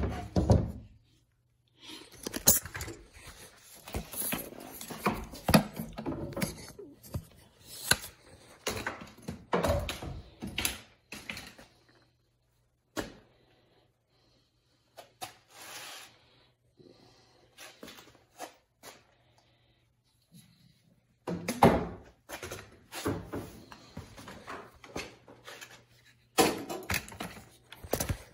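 Irregular knocks, clicks and clatter of hand tools and plastic parts being handled, in two busy spells with a quiet gap between, over a low steady hum that stops about two-thirds of the way through.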